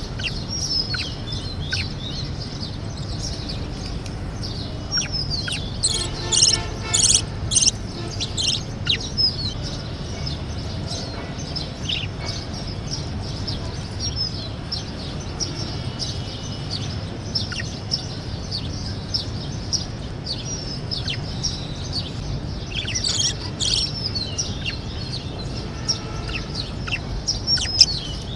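Budgerigars chirping and warbling continuously, many short chirps and quick falling whistles, with louder bursts of chattering about six seconds in and again near the end, over a low steady hum.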